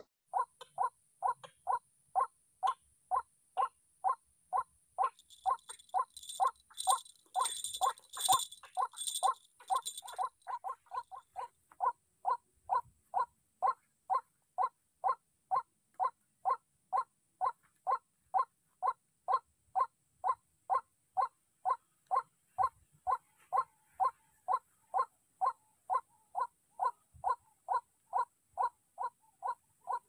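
White-breasted waterhen calling a short note over and over at an even pace, about two a second. A high pulsing buzz joins in from about 5 to 10 seconds in, over a steady high hiss.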